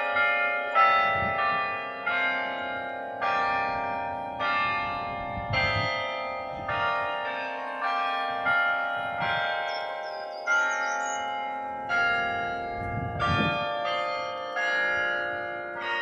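The Berlin Tiergarten carillon, a tower of tuned bronze bells played by hand, playing a slow melody: a bell or chord of bells struck about once a second, each ringing on and fading under the next.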